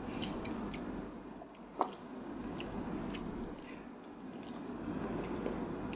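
Faint soft, wet clicks and squishes as sweet soy sauce is poured from a glass bottle onto a heap of rice, with one sharper click about two seconds in.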